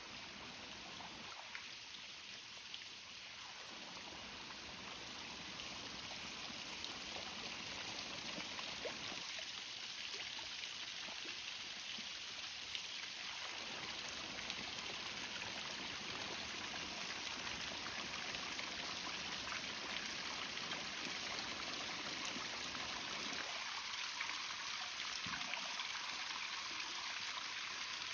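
Running water flowing steadily, a continuous stream-like rush that grows louder over the first several seconds, then holds.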